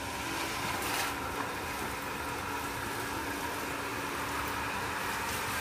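A small motor humming steadily under a hiss of running water, as from a pump feeding a hose.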